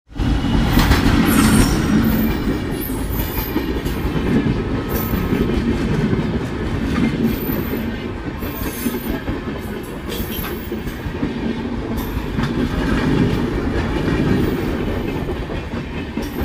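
Bangladesh Railway intercity passenger coaches rolling past close by: a steady rumble of the wheels on the rails, with brief high squeaks every second or two.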